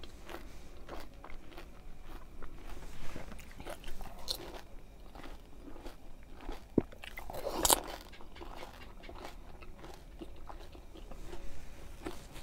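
Pani puri being eaten fast: crisp, hollow fried puri shells bitten and crunched with a full mouth, then chewed. There are many small crackles and clicks, and the loudest crunch comes a little past halfway.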